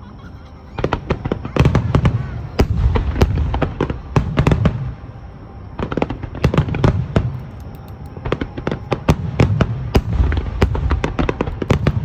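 Fireworks display: aerial shells bursting in rapid volleys of sharp bangs over deep booms, in three dense barrages with short lulls about halfway through and again about two-thirds of the way through.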